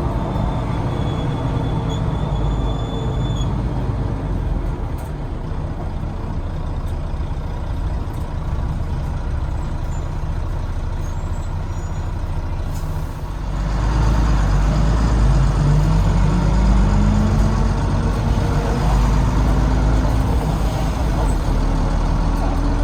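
Volvo D9B diesel engine of a Volvo B9TL double-decker bus running low and steady, then getting louder about 13 seconds in as the bus pulls away, with a rising whine under acceleration that the owner cannot place (gearbox, cooling fan or axles).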